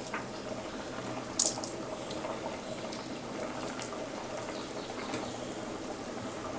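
Tomato and aamsotto chutney bubbling steadily in a pan on the stove, with one sharp clink about a second and a half in.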